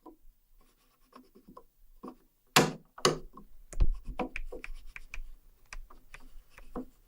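Foley for a safe's combination dial turning: quick, irregular clicks made by rapidly riffled thick-paper agenda pages, layered with the clicking of a plastic bathtub drain-stopper knob. A few louder clicks come about halfway through, then a denser run of clicks.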